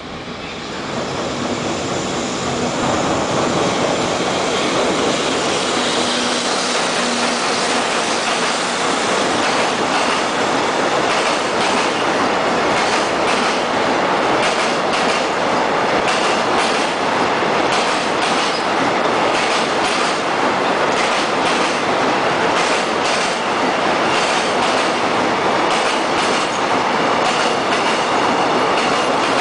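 Container freight train hauled by an EF64 electric locomotive rolling past, growing louder over the first couple of seconds and then running steadily as the wagons go by. The wheels clack over the rail joints again and again.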